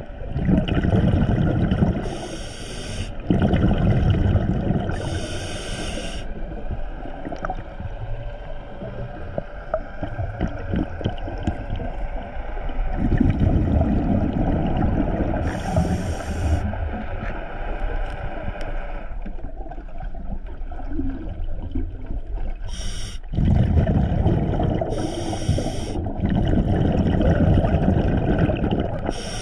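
Scuba diver breathing through a regulator underwater: short hissing inhalations alternate with longer low, gurgling rumbles of exhaled bubbles, repeating several times.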